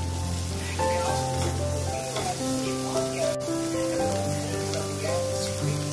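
Onion pakoras sizzling as they deep-fry in hot oil, a steady hiss under background music of slow, held notes.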